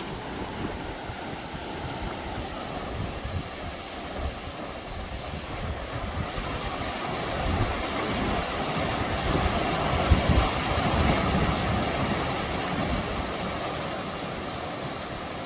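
Mountain stream rushing over rocks, a steady water noise that swells for a few seconds in the middle, with wind buffeting the microphone.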